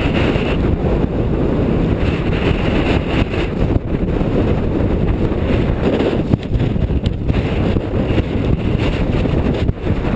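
Strong high-mountain wind, about 40 mph with gusts near 80, buffeting the microphone in a loud, steady rumble.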